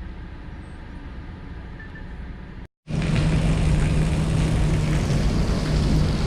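Road noise and engine drone of a moving vehicle heard from inside. About three seconds in the sound cuts out briefly and comes back louder, with a steady low hum.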